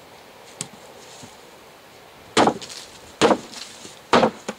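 A large hammer smashing apples one after another on a wooden plank: three heavy blows a little under a second apart, starting about halfway in, with a lighter knock just after the last.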